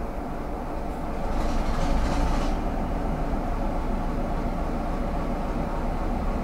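Class 33 diesel locomotive's Sulzer engine idling with the train at a stand, heard as a steady low hum through the observation car. A brief hiss of air sounds about a second and a half in.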